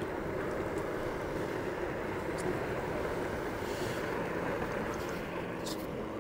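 Steady rushing of wind on the microphone, with road noise, while riding an Apollo Go electric scooter.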